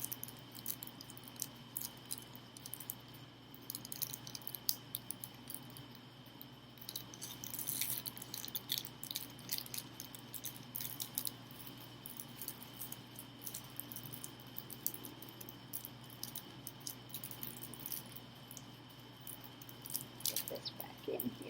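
Scattered small clicks and light rattles of switch plate covers and their screws being handled, over a faint steady electrical hum.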